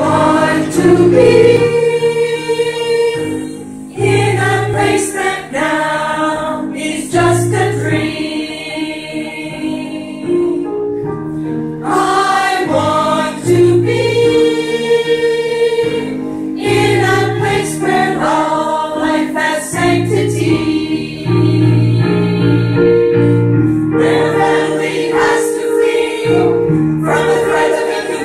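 A women's choir singing a song together, several voices holding notes at once in phrases that break and start again every few seconds.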